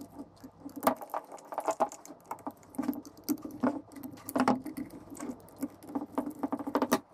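A folding hex key set working the screws out of a turbocharger's inlet housing: irregular clicks, short scrapes and light metal clinks of the tool against the housing.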